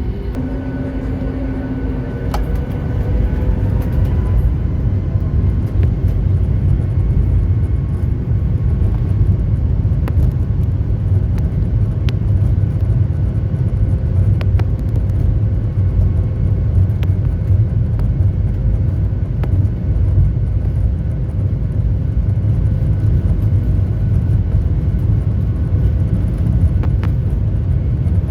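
A car driving: steady low road and engine rumble with a faint engine hum that rises in pitch in the first few seconds, and a few light clicks.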